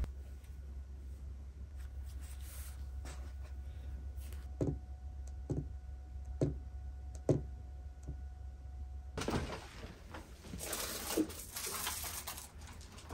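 Soft taps of a knit-gloved fingertip on a smartphone touchscreen, four of them about a second apart, over a steady low hum. Near the end, rustling movement with a few light knocks.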